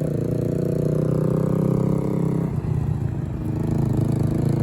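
Yamaha R3's parallel-twin engine running as the motorcycle is ridden, a steady note that eases off and changes about two and a half seconds in.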